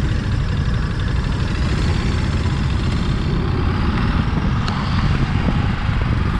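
Motorcycle engine running on the move, under a steady, heavy rumble of wind.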